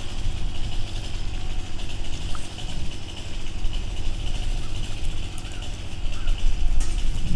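Four-wheeler ATV engine idling steadily.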